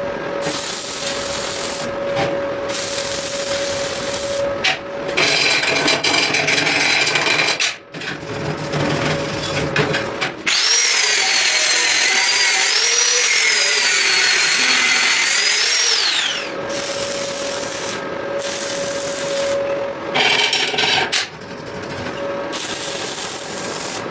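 Power tools working metal: a steady machine hum, and a loud, high, wavering whine of cutting or grinding that lasts about five seconds in the middle.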